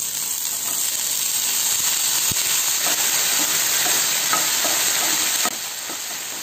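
Chopped pirandai stems sizzling as they fry in hot oil with shallots, garlic and dried red chillies, stirred with a spatula that scrapes faintly against the pan. The sizzle steps down a little about five and a half seconds in.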